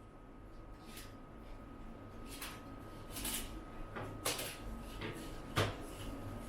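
Handling sounds: about five light clicks and knocks, spaced irregularly, over a faint steady hum.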